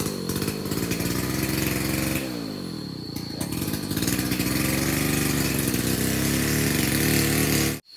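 A small engine running, its revs dropping about two seconds in, then climbing back and holding high until the sound cuts off abruptly near the end.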